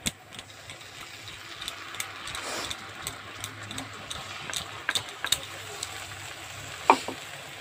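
Metal clinks and scraping as a spoon scrapes wet ground masala paste out of a steel bowl into a kadai of fried onions, with a brief soft sizzle as the paste lands in the hot oil. A sharp clink about seven seconds in is the loudest sound, over a steady low hum.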